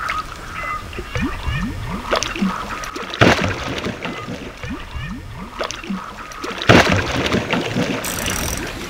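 Water splashing and sloshing as a fish thrashes at the surface, with two louder splashes, one about a third of the way in and one about three-quarters of the way through.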